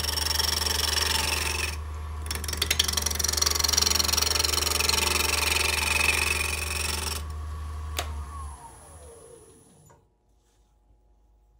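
Wood lathe running with a steady motor hum while a gouge cuts the spinning off-center spindle. The cutting hiss comes in two stretches with a short break about two seconds in. About eight seconds in the lathe is switched off with a click, and its whine falls in pitch as it spins down to a stop.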